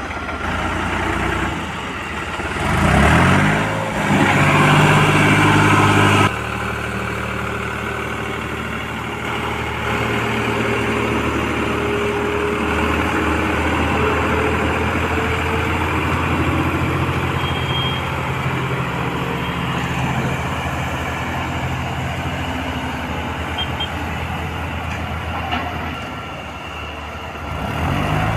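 Backhoe loader's diesel engine running, revving up about three seconds in and staying loud for a few seconds before dropping suddenly back to a steady working note.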